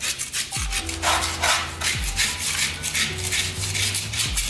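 Hand tool scraped and rubbed back and forth over an old painted plaster wall, in repeated rasping strokes about two a second, over background music with a low beat.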